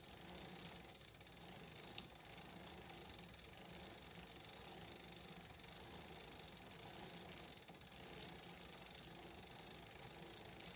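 Bicycle chain running through the drivetrain as the cranks are turned, with a rag held lightly against it to wipe off excess lube; a fast, steady, high-pitched ticking, with one short click about two seconds in.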